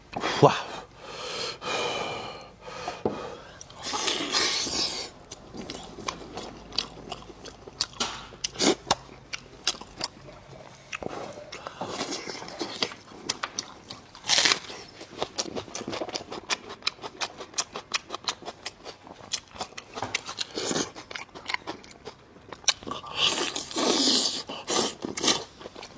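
Close-miked eating of braised meat: chewing and lip-smacking made of many small wet clicks, with a few louder noisy mouth sounds now and then.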